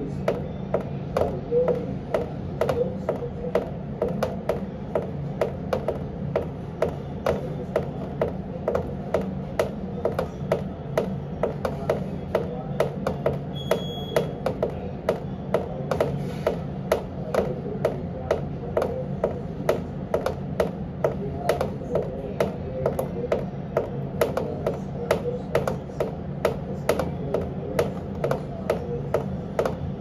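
Water from a leaking air conditioner dripping into a plastic bin, a sharp drop about twice a second, over the steady hum of the running unit. The AC's drain line is plugged, so condensate spills out inside.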